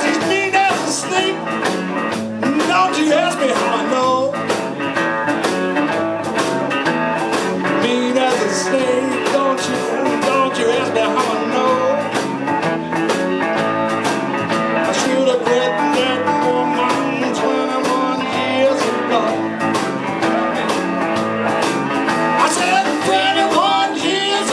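Live blues band playing: electric and acoustic guitars with bending notes over a drum kit, and a woman singing lead.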